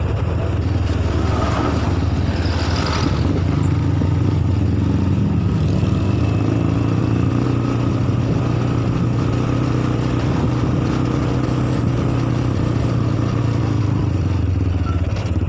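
Vehicle engines and road noise on the move behind a mountain bus: a steady low engine drone that rises and falls a little in pitch, with tyre and wind noise, and a short brighter noise about two to three seconds in.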